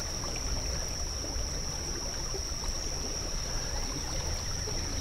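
Creek water running and trickling past the camera, with a low rumble underneath and a steady high-pitched whine over it.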